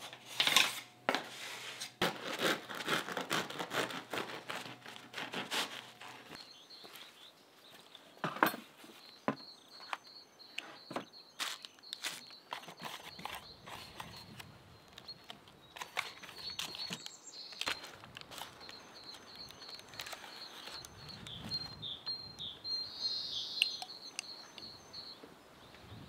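A bread knife sawing through a crusty loaf on a wooden slicing rack, a quick run of strokes over the first several seconds. Then a table knife scraping butter and tapping on a wooden cutting board, with birds chirping in a thin high line behind.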